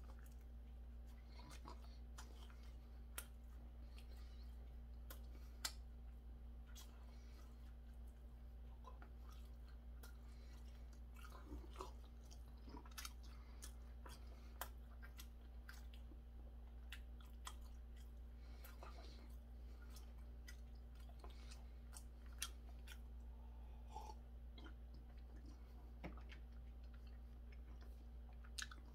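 A person chewing a triangle kimbap, rice wrapped in seaweed, with soft mouth clicks and smacks scattered throughout. A steady low hum runs underneath.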